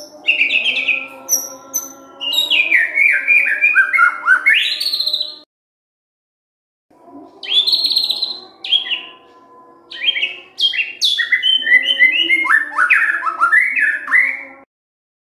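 White-rumped shama (murai batu) singing rapid phrases of whistles and sweeping, falling and rising notes. The song comes in two bouts split by about a second and a half of silence and cuts off suddenly near the end, with faint steady low tones underneath.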